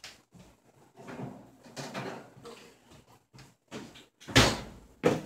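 Kitchen clatter of metal baking trays and the oven: a few soft scrapes, then a loud thump about four seconds in and two more just before the end, as a second tray of baked cookies is taken out and set down.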